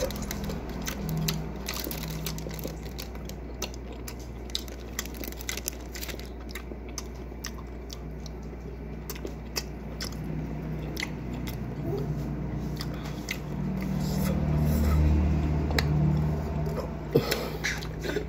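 Close-up chewing and biting of raw cactus pieces: crunches and wet mouth clicks throughout. A brief low voice sound about three quarters of the way in, and a sharp knock shortly before the end.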